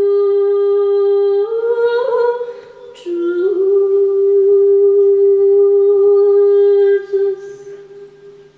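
A woman singing unaccompanied in long held notes. One note is held, wavers upward briefly about two seconds in and breaks off, then a slightly lower note is held for about four seconds before fading near the end.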